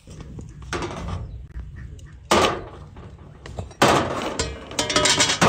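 Large glass jars of tomatoes being set down and shifted on a metal tray, knocking and clinking four times, the last with a brief ring.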